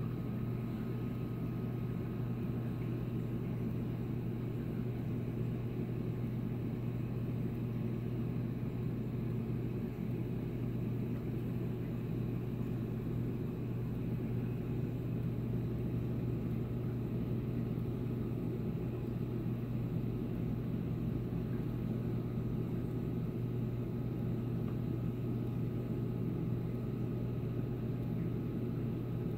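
Reef aquarium equipment running: a steady low electrical hum from the circulation pumps with a wash of water-flow noise over it.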